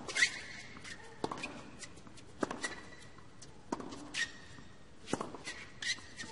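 Tennis rally from the baseline: the ball struck by rackets in turn about every second and a quarter, the first hit the loudest.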